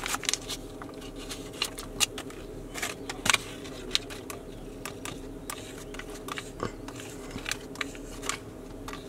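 A steady low hum inside a car cabin, with scattered light taps and clicks as hands handle small objects and touch the side window glass.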